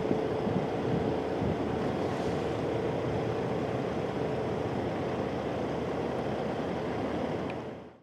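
Jet airliner engines on approach overhead: a steady roar with a faint steady hum in it for the first few seconds, with wind buffeting the microphone. The sound fades out just before the end.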